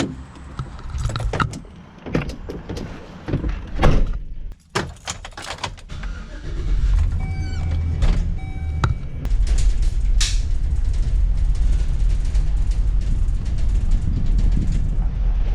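Car being got into and started: keys and door clicks and knocks, then the car running steadily with a low rumble. Two short beeps come about eight seconds in.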